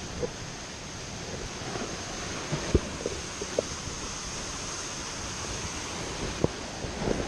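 Sea surf washing against a rocky shore, with wind noise on the microphone. A few short knocks stand out above it, the loudest nearly three seconds in and again near the end.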